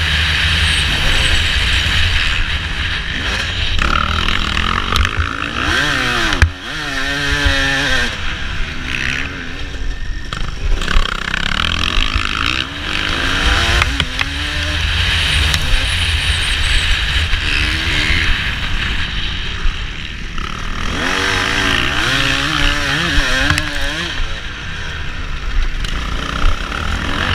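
Motocross dirt bike engine revving hard and falling off again and again as it is ridden through the gears, heard from a helmet camera over heavy wind rumble. A sharp knock comes about six and a half seconds in.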